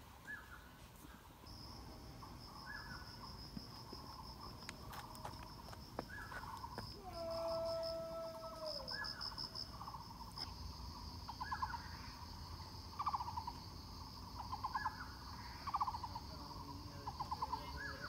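Forest insects trilling in a high, steady, fast-pulsing drone. Under it, a lower pulsed call repeats about every one and a half to two seconds. About seven seconds in comes a single held whistle-like note that drops in pitch at its end.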